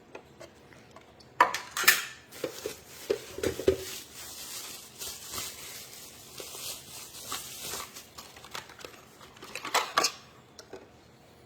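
Hard plastic knocking and clicking as a small plastic dehumidifier and its cover are handled while being unpacked, with a few seconds of rustling in the middle.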